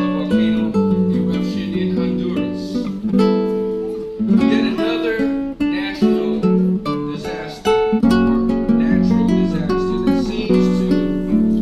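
Acoustic guitar music, picked and strummed notes and chords moving in a steady rhythm.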